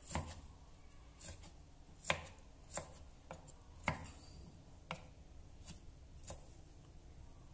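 Kitchen knife chopping on a round wooden chopping board: single, unhurried cuts about once a second, mincing a small pile of aromatics.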